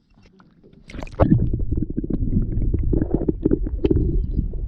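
Water splashing and slapping around a boat in many quick irregular strikes over a heavy low rumble, starting about a second in; the kind of surface commotion a school of trevally makes around a boat.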